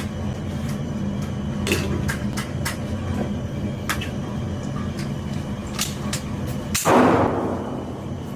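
A short, loud burst of full-auto fire from a .22 with a switch about seven seconds in, ringing out afterwards. Before it, a steady low hum and scattered sharp clicks.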